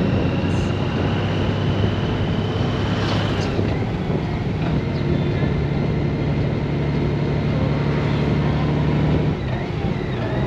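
Honda Gold Wing's flat-six engine running steadily at road speed under wind and road noise. About nine seconds in, the engine note steps down as the bike slows.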